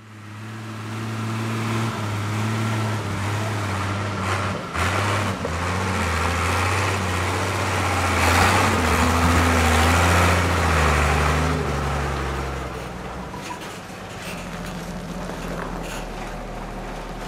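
Diesel engine of an old Mercedes-Benz round-nose truck running, its pitch stepping up and down with the revs. It is loudest about eight to eleven seconds in, then settles to a lower, steadier drone.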